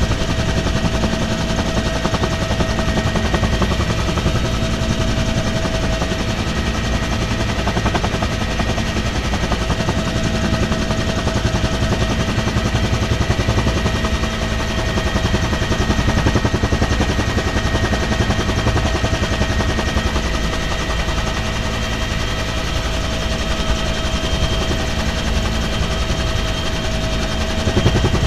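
Military helicopter in flight heard from inside its cabin with the side door open: the rapid, steady beating of the main rotor with a steady high whine over it.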